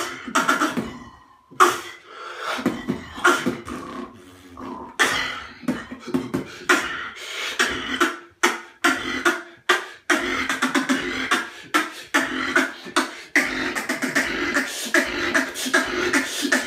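Human beatboxing: rapid, rhythmic vocal percussion of sharp mouth clicks and snare-like hits, with a brief pause about a second in. From about halfway through, a steady hummed low note runs under the beats.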